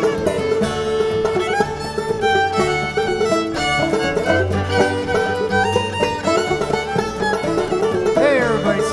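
Old-time string band playing a square-dance tune, a fiddle leading the melody over a steady plucked-string rhythm.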